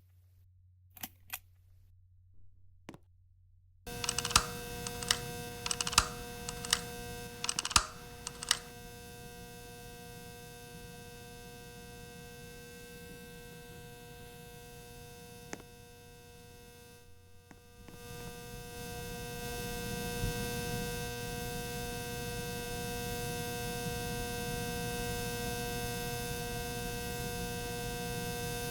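Ceiling fan running with a loud, steady electrical hum made of several fixed tones, which the owner takes for an abnormal noise. The hum starts abruptly about four seconds in, with a quick run of sharp clicks for a few seconds after. It swells louder a little past the middle and then holds steady.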